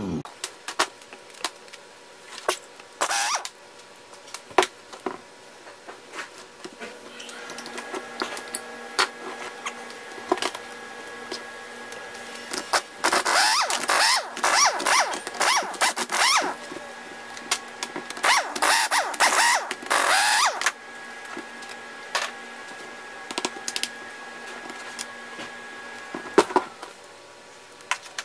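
Pneumatic impact wrench run in short bursts to back bolts out of an outboard powerhead, with two longer hammering runs in the middle and clinks of tools and bolts between them. A faint steady hum sits underneath for most of the time.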